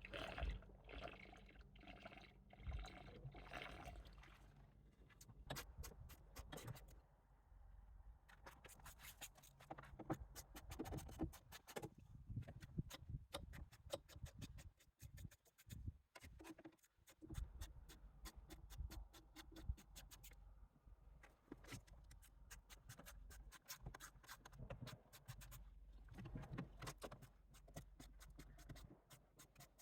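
Faint, irregular clicking, tapping and scraping of hand tools and metal trim being worked loose from a car body.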